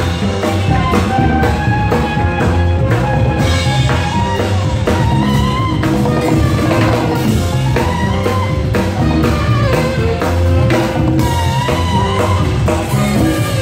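Live band playing instrumental music: a drum kit with cymbals keeping the beat under guitar, and a saxophone carrying a wavering melody line.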